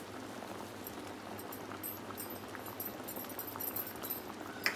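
Coconut-cashew vegetable kurma gravy boiling in an open pan: a steady soft hiss with small scattered pops of bursting bubbles, and a brief click near the end.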